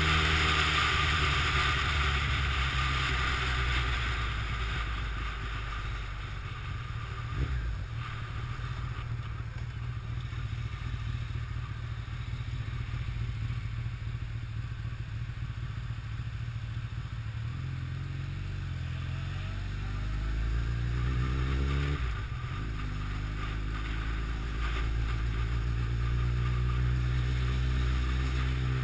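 Honda CBR1100XX Blackbird's inline-four engine running on the move, heard from the rider's seat with wind rush over the microphone that fades after the first few seconds. The engine eases off, there is a single knock about seven seconds in, and from about two-thirds of the way through the note climbs in pitch as the bike accelerates, drops suddenly, then climbs again.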